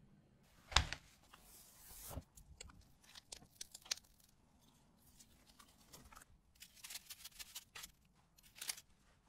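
Close-up cake-making handling sounds: a sharp thump about a second in, then a run of crinkles, scrapes and soft crunches as cream is piped onto a sponge sheet and a rolled sponge cake is cut with a serrated knife, with a short cluster near the end.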